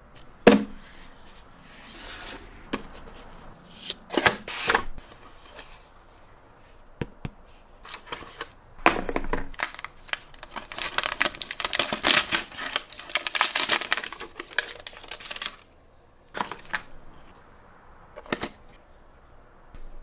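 A phone's retail box and packaging handled and opened by hand: separate clicks, knocks and scrapes, with several seconds of rustling and scraping from about ten seconds in.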